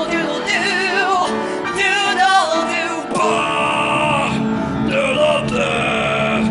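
Male voice singing a musical-theatre song, wordless, with music behind it; about three seconds in the sound changes abruptly to longer held notes.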